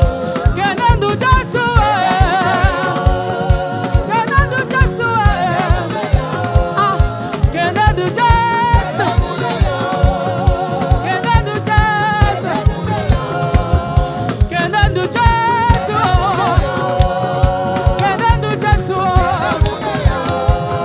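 Gospel choir singing a praise song over a band with a steady, driving drum beat.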